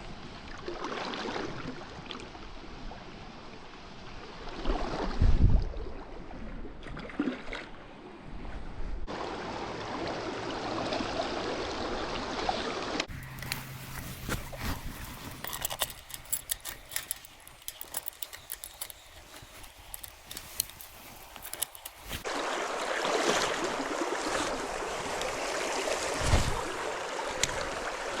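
Stream water running steadily, in several stretches that change abruptly. A heavy low thump comes about five seconds in, and a run of sharp clicks and knocks falls in the middle.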